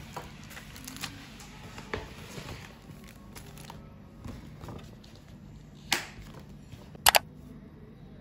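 Paper and clear plastic sticker packaging being handled, with soft rustles and a few sharp plastic crinkles about six and seven seconds in, over quiet background music.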